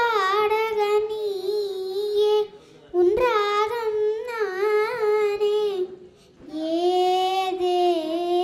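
A young girl singing unaccompanied into a microphone, with long held, wavering notes in three phrases and two short breaks between them.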